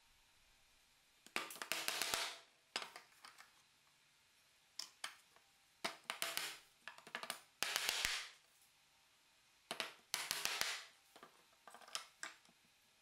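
Loose pine slats being shifted and lifted on a slatted wooden rack, wood scraping and clattering on wood in short bursts about a second apart.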